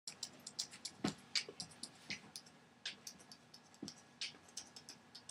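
Irregular light clicks and taps, several a second, with two duller knocks, one about a second in and one near four seconds.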